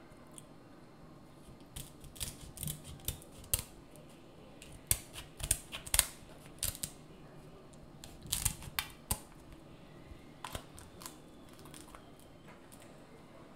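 Kitchen scissors snipping through the shell of a king crab leg close to the microphone. Sharp snips and cracks come in irregular clusters, with quieter gaps between them.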